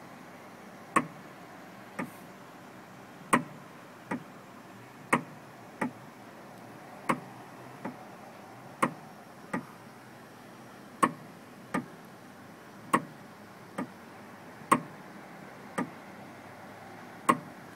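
A strange clicking from a Renault 19: a sharp click followed by a softer one less than a second later, the pair repeating about every two seconds with no clear cause known.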